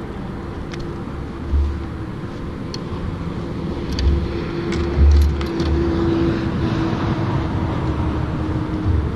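Road traffic running steadily on a lakeside road, with a faint steady hum and a few low thumps.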